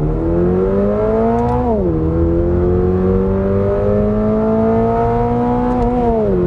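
A 2022 Subaru BRZ's 2.4-litre flat-four accelerating hard, heard from inside the cabin. The engine note climbs, drops as the six-speed Aisin automatic upshifts about two seconds in, climbs again, and drops with another upshift near the end.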